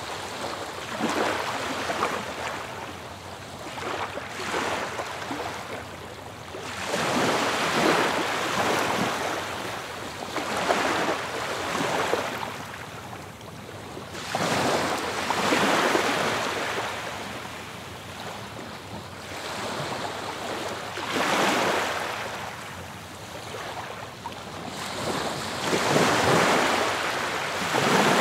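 Ocean surf: waves breaking and washing up a shore, each swelling and fading away in a slow, rhythmic wash, one surge every few seconds.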